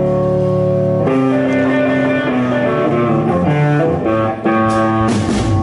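Live band music led by guitar: a held chord, then a string of single guitar notes from about a second in.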